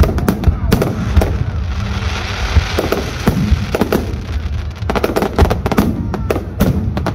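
Fireworks display going off at close range: rapid volleys of sharp bangs, with a stretch of dense crackling in the middle before another quick run of bangs.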